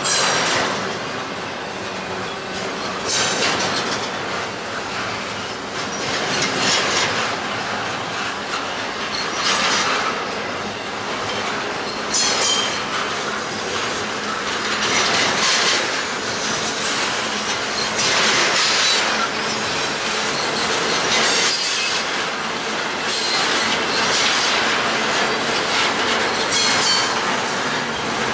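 Double-stack intermodal container train rolling past: steady wheel-on-rail clatter that swells about every three seconds as each car's wheel sets go by.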